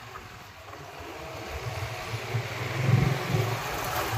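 A motor engine rumbling low, growing louder to a peak about three seconds in, then easing.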